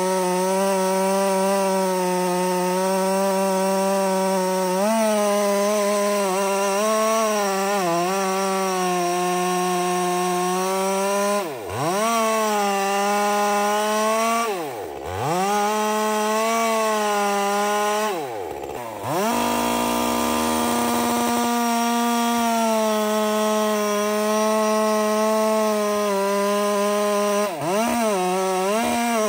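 Top-handle chainsaw running at high revs, cutting through a large log. Its pitch sags and recovers about four times as the chain loads up in the wood or the throttle is eased.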